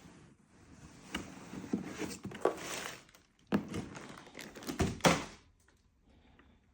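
Motorcycle helmet and its packaging being handled: rustling with several thunks, the loudest about five seconds in, then it goes quiet.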